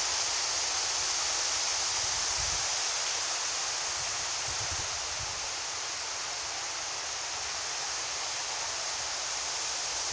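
Strong wind blowing as a steady, loud hiss, with irregular gusts buffeting the microphone in low rumbles every few seconds.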